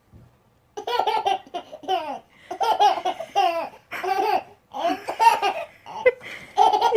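A baby or toddler laughing in a long run of repeated high-pitched giggles, starting about a second in.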